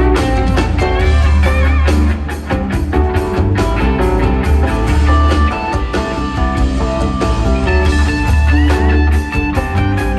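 Rock band playing live in an instrumental jam passage: electric guitar lead lines over heavy bass and steady drums, with a long held guitar note midway.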